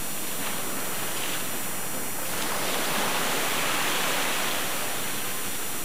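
Steady outdoor hiss of wind and water, swelling a little about halfway through and then easing back.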